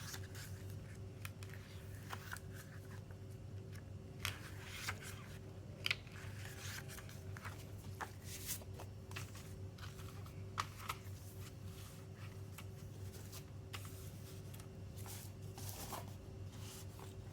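Hands handling a CD album's packaging and photo booklet: scattered sharp clicks, taps and short paper and plastic rustles, the sharpest click about six seconds in, over a steady low electrical hum.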